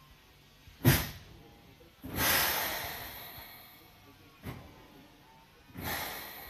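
A sharp clunk, then compressed air hissing out of a stopped train twice, each hiss fading away over a second or two, with a short click between them.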